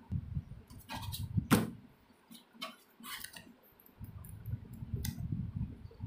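Paper booklets and plastic packing being handled in a cardboard box: a few sharp taps and clicks over low handling rumble.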